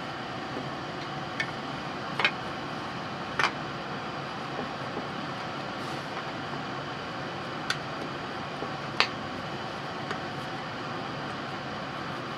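Steady, even background noise in a workshop, with a handful of sharp light clicks and taps as a clear plastic square and a pencil are handled and set against a wooden block on a board.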